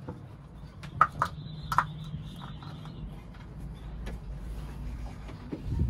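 A few light plastic clicks and knocks as a funnel is set into the engine's oil filler neck and the oil jug is handled, the sharpest two about a second in, another near the end, over a low steady hum.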